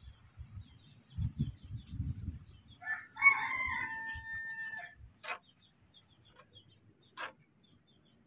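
A rooster crowing once: a call of about two seconds held at a steady pitch, ending a little lower, after a couple of seconds of soft low bumps. Two sharp clicks follow later.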